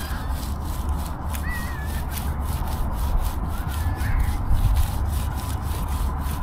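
Steady rubbing and scraping noise with a low rumble and many small ticks; two brief faint chirps about a second and a half and four seconds in.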